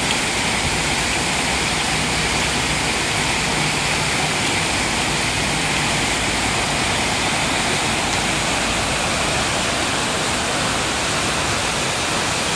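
Waterfall cascading over rocks into a pool: a steady rush of water with no breaks.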